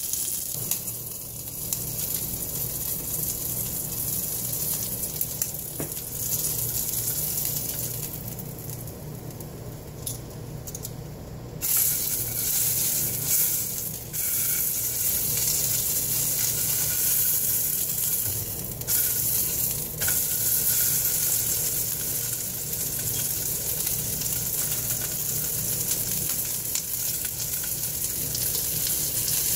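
Bacon wrapped around a grilled cheese sandwich sizzling in a frying pan, a steady hiss that grows louder about twelve seconds in. A few sharp clicks come through over it, with a steady low hum underneath.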